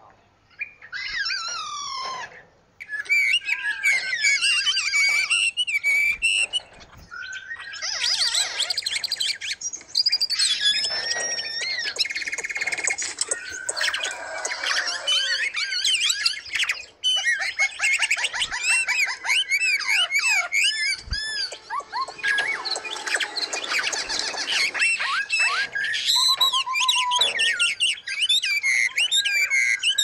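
Several small songbirds singing and chirping at once, a dense chorus of quick warbles, trills and whistled notes that overlap and pause briefly a few times.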